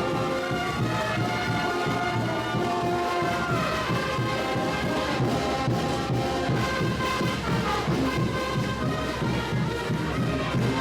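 Traditional Bolivian parade band music: brass holding and sliding between notes over steady drumming.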